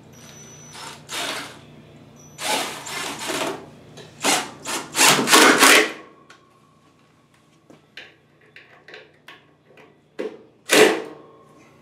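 Wooden support block being fastened to a jet engine's metal mounting bracket: several short bursts of wood rubbing and grinding, the loudest about halfway through, with small knocks between them. A cordless drill is being used on the block near the end.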